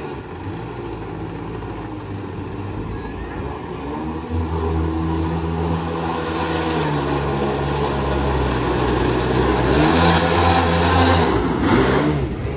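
Mini aluminium jet boat's Kawasaki 650 two-stroke twin engine running hard, its pitch rising and falling again and again with the throttle and growing louder. Rushing water spray joins in about ten seconds in.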